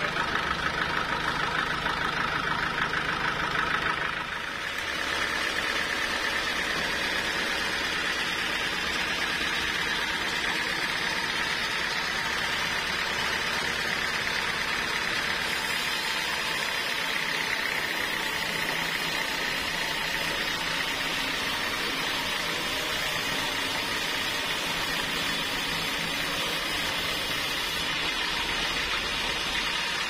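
Homemade band sawmill running steadily, then from about four seconds in the band saw blade cutting lengthwise through a large trembesi (rain tree) log: a steady high whine over a hiss.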